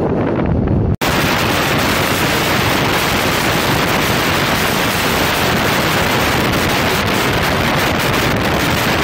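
Loud, steady rush of wind over the microphone from a moving bus, with the bus's running noise beneath. The sound cuts out for an instant about a second in.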